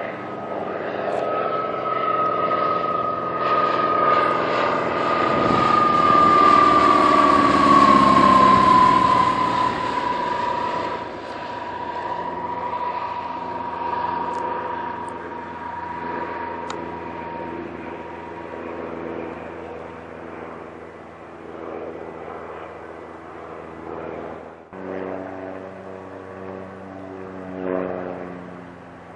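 Propeller aircraft flying past, its engine drone swelling and then dropping in pitch as it goes by. Near the end it cuts abruptly to another aircraft engine running steadily.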